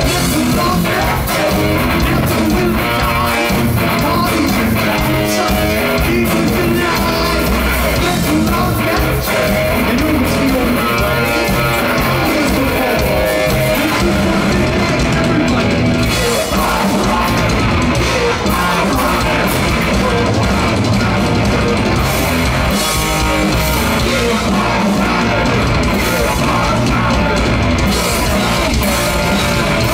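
Heavy metal band playing live: loud distorted electric guitar over a drum kit, with some singing.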